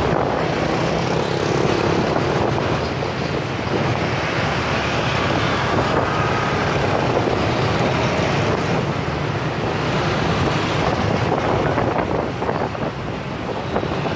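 Steady hum of motorbike engines and road traffic, heard while riding in open air through city motorbike traffic. Wind rushes over the microphone throughout.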